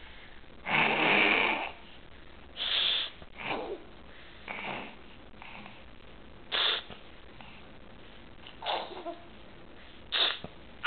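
A baby boy making a string of short, breathy, raspy noises, about eight in a row. The longest and loudest comes about a second in, the rest one to two seconds apart. It is a noise-making trick he copies.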